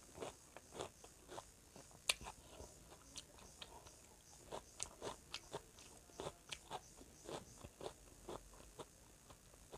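Close-up chewing of a mouthful of rice and curry: a run of small crunches and clicks, a few a second, with one sharper click about two seconds in.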